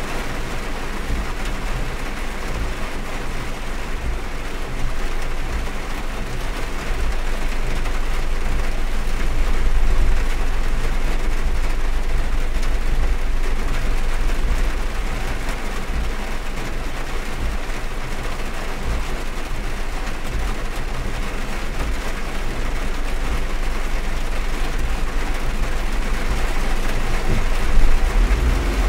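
Heavy rain beating on a car, heard from inside the cabin, over a steady low rumble from the car.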